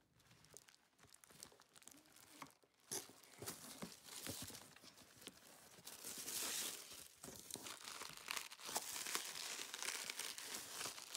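Packaging crinkling and rustling as a makeup kit is unpacked by hand, with scattered small clicks and knocks. It starts faint and gets louder after about three seconds.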